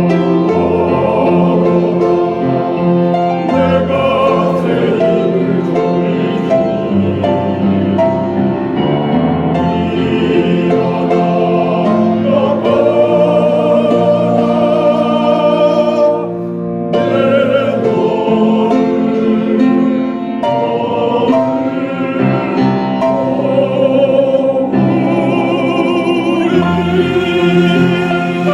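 Church choir singing a gospel song with instrumental accompaniment, the sustained voices wavering with vibrato. The sound dips briefly about sixteen seconds in, then the choir carries on.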